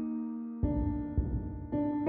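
Slow instrumental music of sustained keyboard chords. A new chord is struck about half a second in and another near the end, each ringing and slowly fading over a low rumbling texture.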